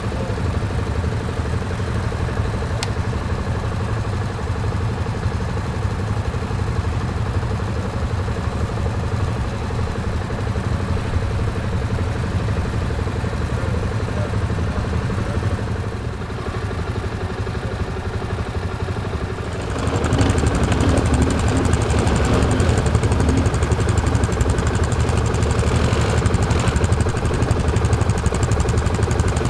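Several ATV engines idling together. About twenty seconds in, the sound jumps louder and closer: a quad's engine running near the microphone.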